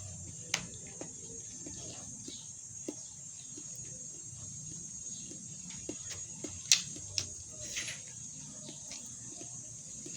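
Eating at a meal: a few sharp clinks of spoon and fork on a plate, loudest about seven seconds in, over a steady high-pitched hiss.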